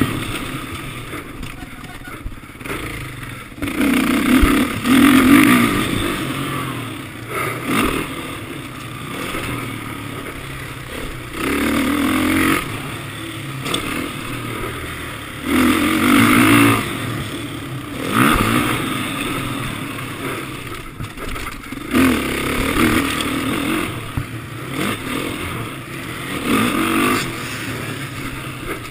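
Motocross motorcycle engines revving hard and backing off in repeated surges every few seconds as the bikes run the track.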